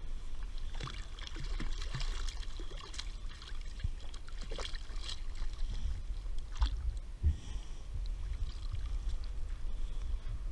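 Water splashing and lapping at the side of a fishing kayak as a small thornback ray is lifted and unhooked at the surface, with scattered knocks and clicks from handling, over a steady low rumble.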